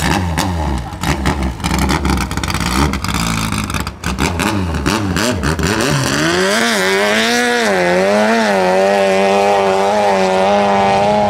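Modified Toyota 5K four-cylinder engine of a longtail racing boat, through a straight pipe, revved up and down in quick blips with sharp pops. About six seconds in, the propeller drops into the water and the engine pulls hard at high revs as the boat launches. Its pitch wavers, then holds steady near the end.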